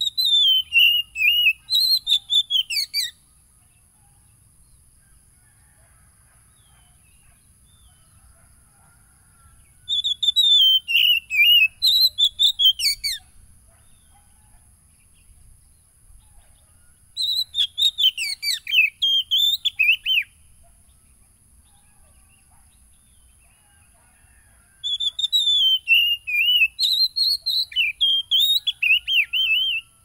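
Oriental magpie-robin (kacer) singing in four bouts of a few seconds each, every bout a quick run of varied whistled notes, separated by pauses of several seconds.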